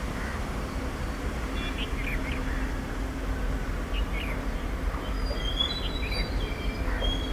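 Small birds chirping in short, scattered calls over a steady low rumble from a WAP7 electric locomotive approaching in the distance.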